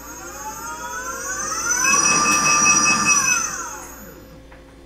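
Gotway Tesla electric unicycle's hub motor whining, rising in pitch as it speeds up, holding steady, then falling away as it slows. Through the middle, for about a second and a half, a rapid beeping sounds: the wheel's overspeed alarm.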